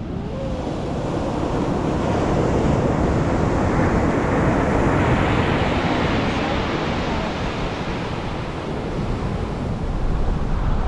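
Ocean surf breaking and foaming up the beach, a steady rushing wash that swells to its loudest about halfway through, then eases off.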